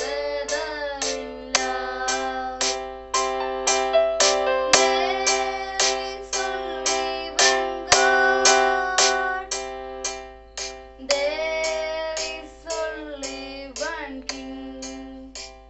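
A boy singing a prayer song over a plucked-string accompaniment, which keeps an even beat of about two to three strokes a second.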